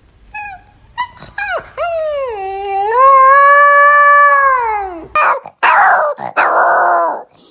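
A husky puppy gives a few short yips, then a long howl of about three seconds that dips in pitch and rises again. About five seconds in, a second fluffy puppy lets out three short, hoarse yowling barks.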